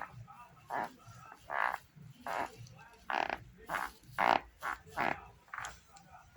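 Sneaker sole creaking: a dozen or so short, buzzy squeaks in an irregular rhythm, the 'nhaque, nhaque' noise that the owner traced to a loose hard black plastic piece under the insole.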